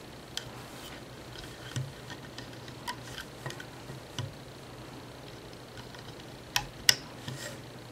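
Scattered small clicks and taps of rubber loom bands being handled and stretched onto the plastic pegs of a band loom; two sharper clicks come close together near the end.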